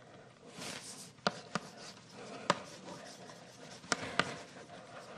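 Chalk writing on a blackboard: soft scratching strokes broken by a handful of sharp taps as the chalk strikes the board.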